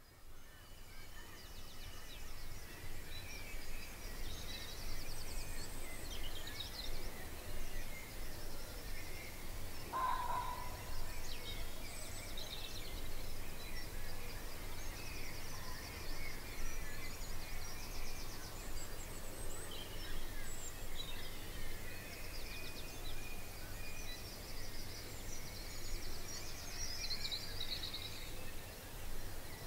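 Dawn chorus: several songbirds singing at once, with rapid trills and high chirps overlapping throughout, over a steady low rumble. One louder, lower call stands out about ten seconds in.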